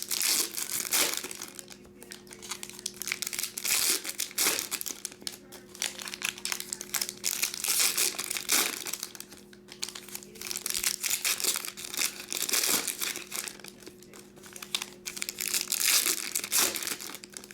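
Trading card packs and wrappers being handled and opened, crinkling in irregular bursts, with a faint steady hum underneath.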